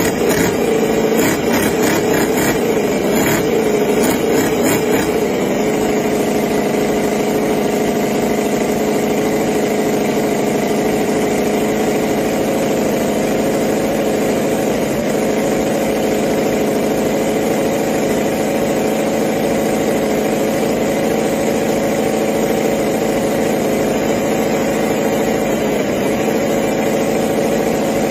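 Miniature ENJOMOR GS-V8 four-stroke model V8 engine running, uneven for the first few seconds while a hand works at the top of the engine, then settling to a steady idle.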